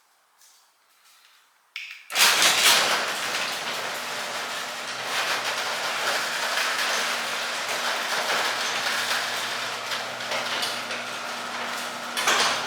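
Motorized garage door running: the opener starts suddenly about two seconds in, then the door travels with a steady rattling noise over a low motor hum.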